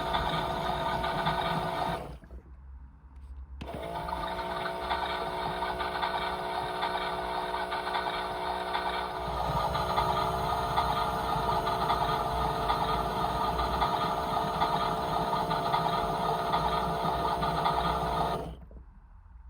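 Small electric motor of a toy washing machine turning its drum. It runs, stops for about a second and a half, then starts again with a rising whine. It settles to a steady run, changes pitch slightly about halfway, and stops near the end.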